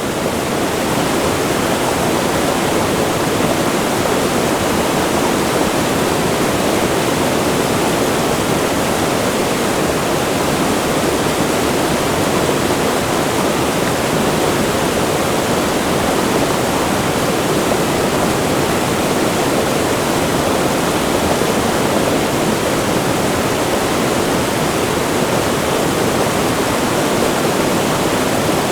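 Wide river of rushing water close to a waterfall: a steady, dense rush of water, heaviest in the low-middle range, swelling in over the first second and then unchanging.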